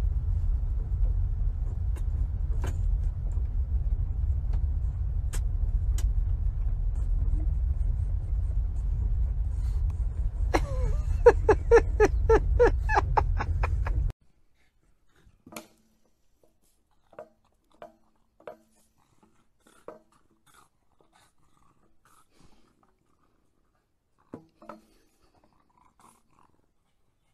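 Steady low rumble with a quick run of about ten short, pitched cries over three seconds about halfway through. The rumble cuts off suddenly, leaving only a few faint scattered taps.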